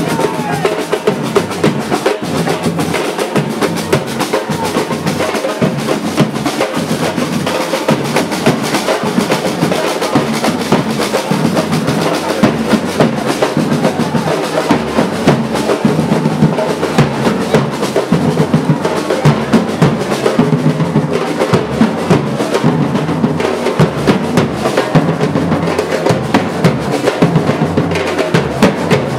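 Drums played continuously with many quick, sharp strokes, as in a festival drum performance.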